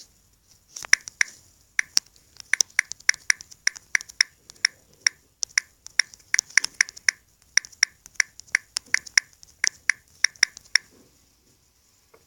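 Typing: a run of quick key clicks, several a second and unevenly spaced, stopping about eleven seconds in.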